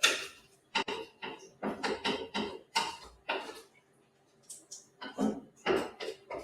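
Cooking pot and utensils clattering: a quick run of short knocks and scrapes, with a brief lull partway through, while water and ingredients go into the pot.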